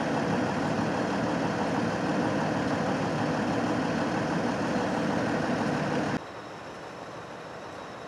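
A heavy vehicle's engine idling steadily. About six seconds in it cuts off abruptly, leaving a quieter steady background noise.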